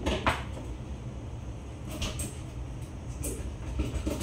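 A few short, light knocks and clicks over a steady low rumble.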